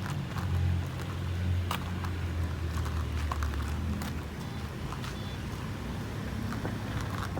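A car running: a steady low engine and road hum, with a few faint clicks.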